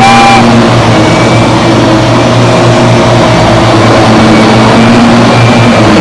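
Bagless upright vacuum cleaner running steadily, a loud constant motor noise with a low hum.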